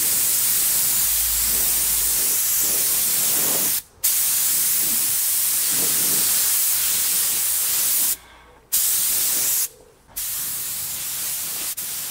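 Steady hiss of a DeVilbiss SRi Pro spot-repair spray gun at about 2 bar, atomising leather dye in long passes. The hiss cuts off briefly about four seconds in and twice more between eight and ten seconds as the trigger is let go. It is a little quieter after that.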